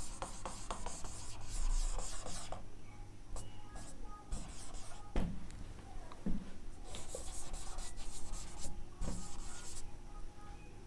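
Marker pen squeaking and rubbing across a whiteboard in runs of writing strokes, with pauses between words and a few light knocks.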